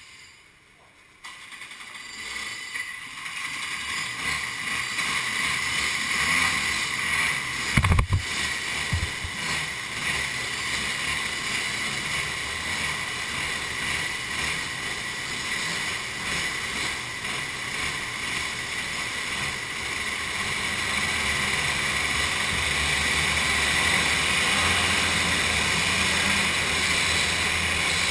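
A field of Rotax Max 125cc two-stroke kart engines starting up and running in the holding area, building up over the first few seconds into a steady engine din. There is a single heavy thump about eight seconds in.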